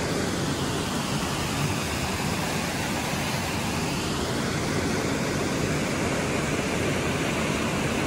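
Steady rush of fast-flowing stream water.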